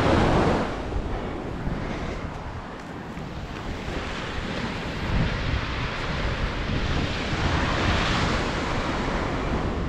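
Wind buffeting the microphone, with the rush and wash of seawater.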